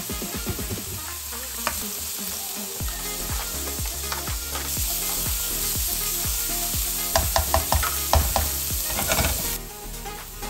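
Minced garlic and onion sizzling in oil in a nonstick wok while a spatula stirs and scrapes them. The sizzle grows louder about halfway through, a quick run of scrapes follows, and the sizzle drops off sharply near the end.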